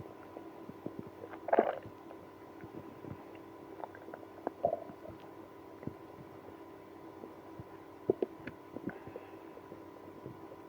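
Stomach and bowel gurgling: scattered small pops and squelches, with a louder gurgle about a second and a half in, another near five seconds, and a few sharp pops around eight seconds, over a faint steady hum. Gut activity of a person with IBS after drinking milk and prune juice.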